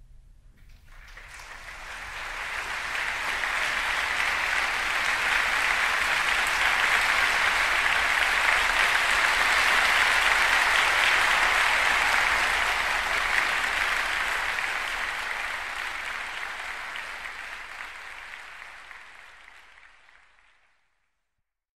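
Concert audience applauding. The clapping swells up over the first few seconds, holds, then gradually fades out to silence near the end.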